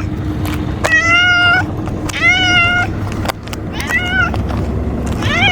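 A cat meowing repeatedly: four drawn-out meows about a second and a half apart, each rising in pitch and then holding, the last starting near the end.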